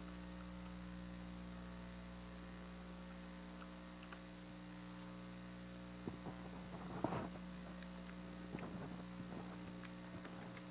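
Steady electrical mains hum in the recording, with a few faint clicks and a brief louder rustle in the second half, as a spec number is typed on a computer keyboard.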